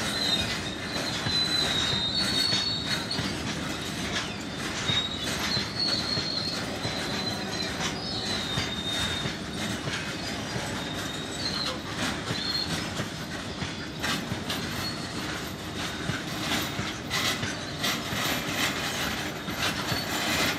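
Covered freight wagons rolling past: a steady rumble of wheels on rail with repeated rail-joint clicks, and a high wheel squeal that comes and goes, mostly in the first half.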